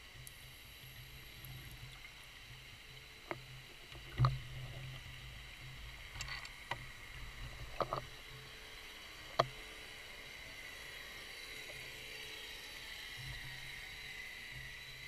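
Underwater recording through a diver's camera housing: a faint steady hum with a scatter of sharp clicks and taps between about three and ten seconds in, the loudest, with a low knock, about four seconds in.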